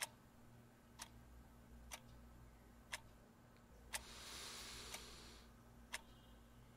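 Clock ticking steadily, once a second, in a quiet room, with a soft hiss lasting about a second and a half starting about four seconds in.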